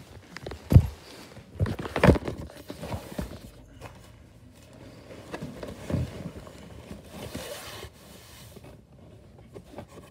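Handling noise from a FitRx Pro massage gun and a phone being moved about in the hand: a few sharp knocks in the first two seconds, then softer irregular knocks and rustling. The massage gun is switched off.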